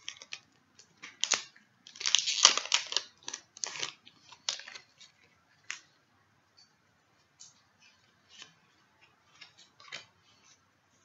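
Foil Pokémon booster pack wrapper being opened, with crinkling and rustling in bursts over the first few seconds, loudest about two seconds in, then only light scattered rustles and ticks of handling.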